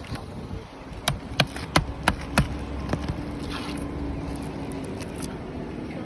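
Roofing nails being driven into asphalt ridge cap shingles: about five sharp strikes in quick succession, roughly three a second, starting about a second in. After them comes a steady low hum with a faint held tone.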